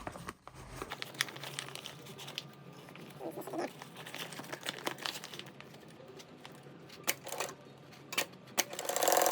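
Stiff bag fabric being handled and folded at a sewing machine, rustling and crinkling with scattered clicks and taps over a low steady hum. Near the end comes a short, louder run of rapid machine stitching.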